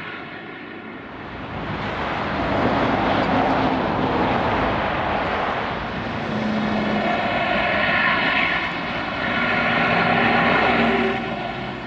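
A distant engine drone: a steady pitched hum that grows louder about two seconds in and wavers in pitch and loudness.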